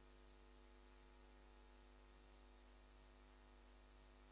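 Near silence: a faint, steady electrical hum with hiss.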